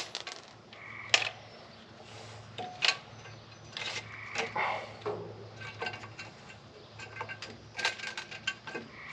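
Scattered metal clinks and clicks of bolts and hand tools being handled while the intake manifold bolts are started on a Ford 460 V8. A low steady hum runs underneath.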